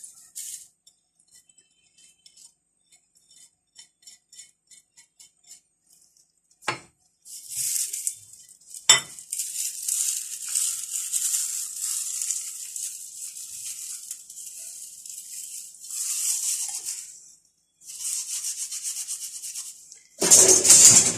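Dried mint leaves rubbed and crumbled between gloved fingers over a bowl of tahini sauce: a dry rustling hiss for about ten seconds, then a second shorter bout near the end. Before it come faint ticks of a silicone spatula scraping spices off a plate, and a couple of sharp knocks.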